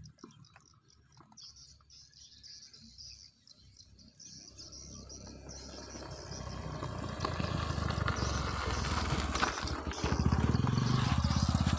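A motorcycle engine approaching, growing steadily louder from about four seconds in until it is loudest near the end.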